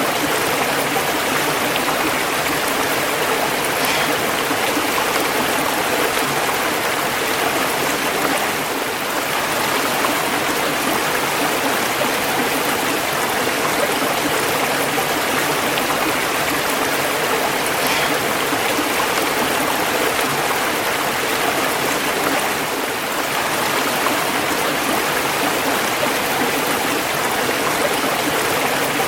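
Running water rushing steadily and without pause, a continuous hiss with no distinct splashes.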